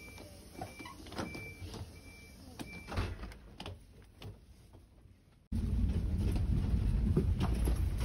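A high electronic beep repeating about every three-quarters of a second for the first three seconds, amid knocks and rustling from the phone being carried. After a sudden cut a bit past halfway, the steady low rumble of a passenger train running, heard from inside the carriage.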